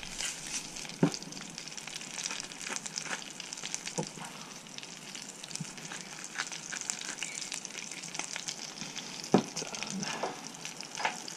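Flathead fillets frying in oil in a pan, a steady sizzle full of fine crackles, with a few soft knocks now and then.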